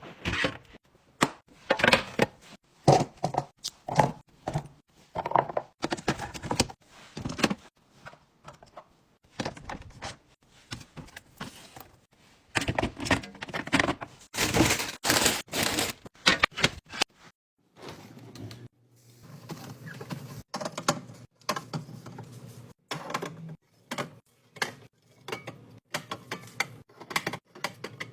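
Food containers and packaging being handled and set down while a fridge is restocked: a run of irregular taps, knocks and thunks, with a denser stretch of hissy rustling near the middle.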